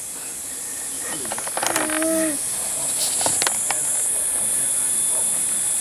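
Steady high-pitched insect chorus, growing louder over the first two seconds. A brief vocal sound comes about two seconds in, and a few light clicks follow about a second later.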